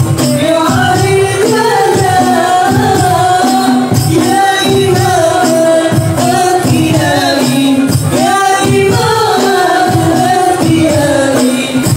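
A male voice singing an Arabic sholawat melody through a microphone and PA, with long held and ornamented notes, over a steady beat of hand-played frame drums.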